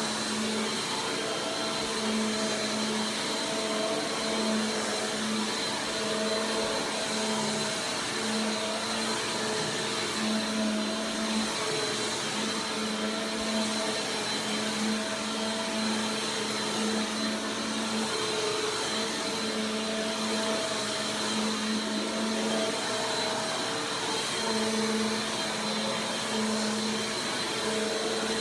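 Bissell PowerForce Compact Turbo 2690 upright vacuum cleaner running steadily, a constant motor rush with a thin high whine over it. A lower hum swells and fades every second or two.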